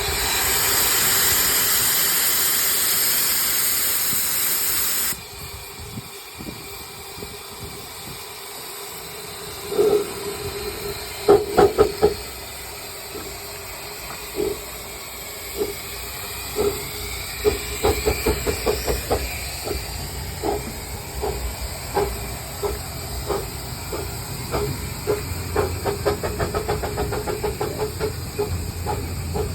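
The 15-inch-gauge steam locomotive Dr Syn moving off: steam hissing loudly, which cuts off suddenly about five seconds in, then a few heavy exhaust chuffs as it starts. The chuffs then settle into a regular beat that gets quicker as the engine picks up speed.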